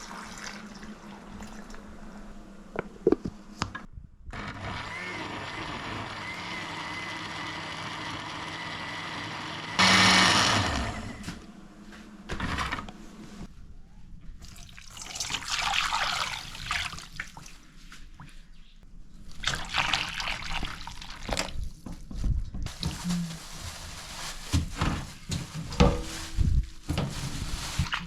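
Water running and splashing in a sink in several uneven bursts, with scattered knocks of things being handled.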